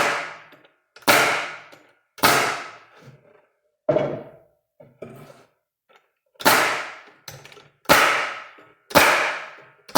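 Staple gun driving staples into the rabbet-jointed corners of a wooden 8-frame hive box. Sharp shots come about once a second, each ringing briefly: six loud ones, with a couple of fainter ones in the middle.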